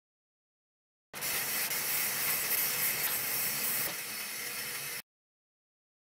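Aerosol spray can hissing in one steady spray, starting abruptly about a second in and cutting off abruptly about four seconds later.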